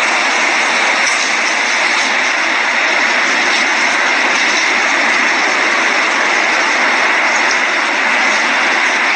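Hurricane-force wind and rain from Hurricane Irma: a steady, loud rushing hiss.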